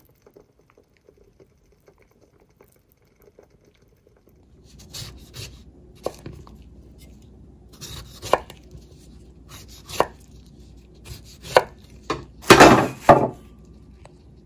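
Chef's knife cutting limes into wedges on a wooden cutting board, starting about four seconds in: the blade knocks against the board every second or two, with the loudest cluster of chops near the end.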